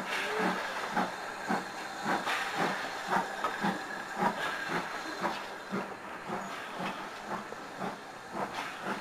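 Steam-hauled train running, heard from a carriage window: an even beat of short exhaust chuffs, about three a second, over a steady hiss.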